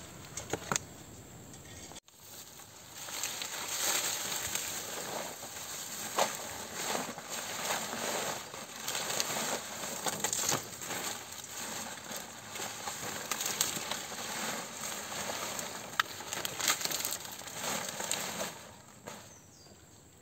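Fresh banana leaves rustling and crackling as they are handled and laid over a hole in the ground, with many sharp crackles; it starts a few seconds in and dies down near the end.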